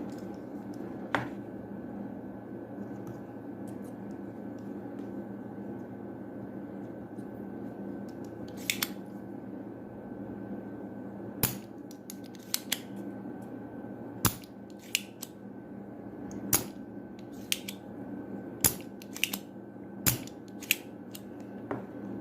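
Sharp, irregular clicks and taps of small tools handled against a mouse's circuit board during a click-switch repair, one about a second in and a dozen or more scattered through the second half, over a steady low hum.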